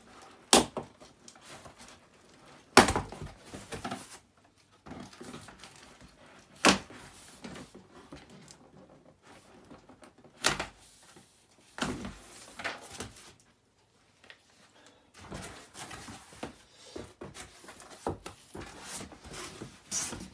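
Cardboard box being opened by hand: a few sharp knocks and thuds from the cardboard and its flaps, the loudest about three seconds in, with softer rustling of cardboard in between.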